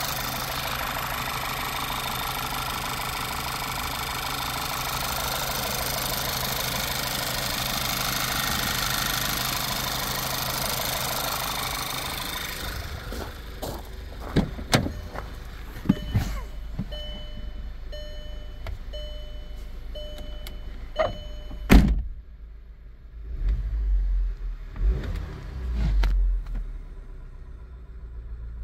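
Volkswagen 2.0 TSI (CCTA) turbocharged four-cylinder idling, heard up close in the open engine bay. About halfway through the engine sound falls away, a run of short electronic beeps follows, and a car door shuts with a single loud thunk.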